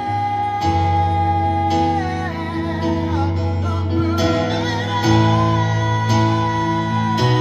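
Live ballad with acoustic guitar and keyboard chords changing about once a second, and a wordless sung vocal line wavering in pitch in the middle.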